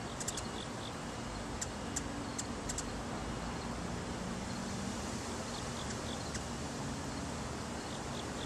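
Steady outdoor background hiss with a faint low hum and a scatter of short, faint high-pitched chirps or ticks, most of them in the first three seconds and a few more about six seconds in.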